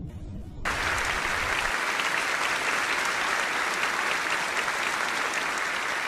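A low rumble at the start, then a studio audience suddenly starts applauding under a second in and keeps clapping steadily.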